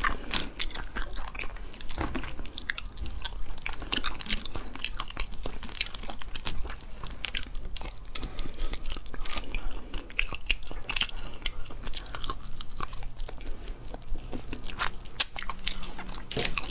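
Close-up biting and chewing of cooked mantis shrimp. The shells crack and crunch many times, with wet chewing in between.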